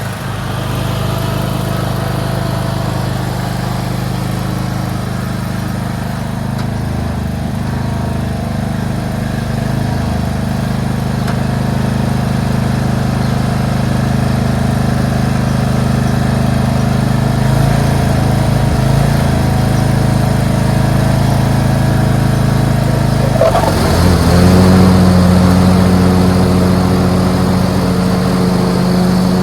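Craftsman LT2500 lawn tractor's engine running steadily while mowing, its note wavering briefly past the middle and rising a little about three-quarters of the way through.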